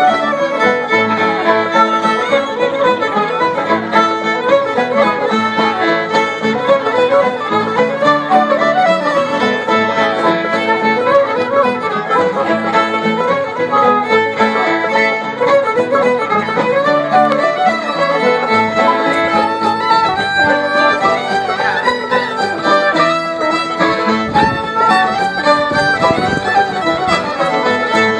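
Acoustic old-time string band playing a tune together: fiddles carry the melody over strummed acoustic guitars and other plucked strings, without a break.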